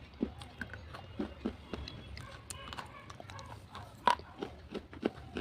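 Slate pencils being bitten and crunched: irregular sharp cracks and snaps, with one loudest crack about four seconds in.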